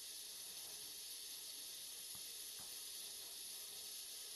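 Steady hiss of a kitchen tap running into the sink during dishwashing, with two faint clicks a little past the middle.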